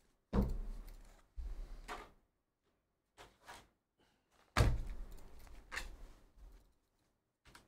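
Two loud thumps about four seconds apart, each dying away over a second or so, with a few softer knocks and clunks between them.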